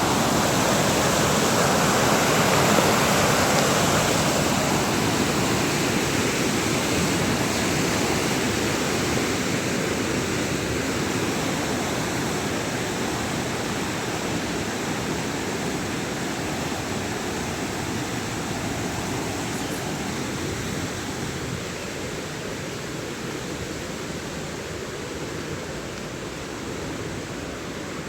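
Rushing water of a mountain river or stream, a steady noise that slowly grows fainter.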